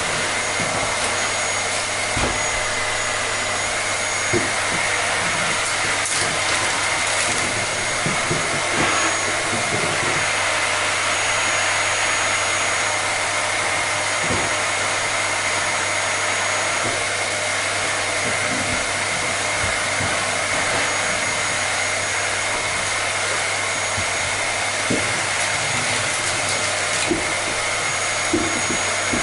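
Vacuum cleaner running steadily: a constant whooshing airflow noise with a high motor whine and a low hum.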